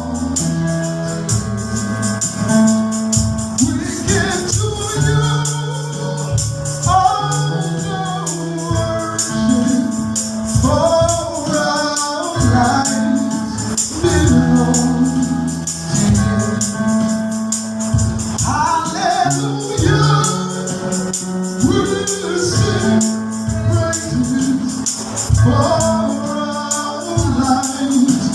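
Gospel worship music: voices singing over a sustained instrumental backing with rhythmic percussion.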